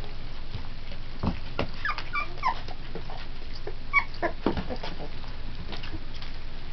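Three-week-old pit bull puppies whimpering in short, high squeaks, a cluster about two seconds in and another near four seconds.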